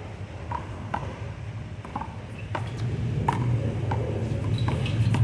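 Sharp smacks of a rubber handball in a rally, struck by open hands and rebounding off the wall and pavement, about one every half second to second. A low steady rumble runs underneath and grows louder near the end.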